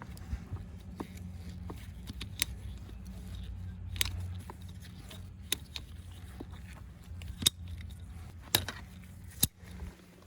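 Scattered sharp clicks and scrapes of hand work on a muddy PVC condensate drain pipe, being cleaned off before it is cut, over a steady low hum.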